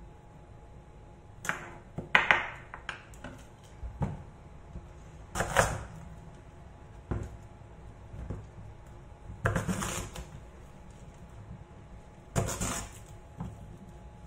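Kitchen knife cutting through a hard-skinned pumpkin and striking a wooden cutting board: separate sharp cuts and knocks, some single and some in short crackly clusters, spaced a second or more apart.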